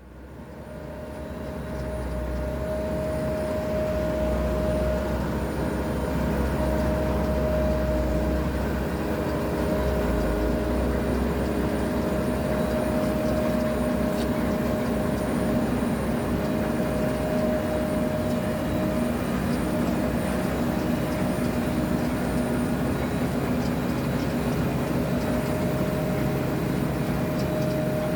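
Tractor-drawn potato harvester at work: a steady drone of engine and machinery with a constant whining tone, fading in over the first few seconds.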